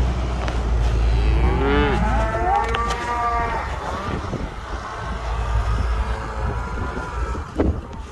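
Cattle mooing: a long moo that rises and falls in pitch, about one and a half to three and a half seconds in. A low rumble underneath fades after the first couple of seconds.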